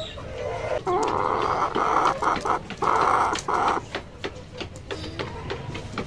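A chicken giving a run of about four harsh, raspy calls over some three seconds, with light clicks and rustles of handling around them.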